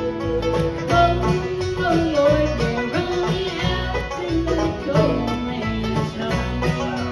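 Bluegrass-style background music: banjo and guitar picking over a steady beat.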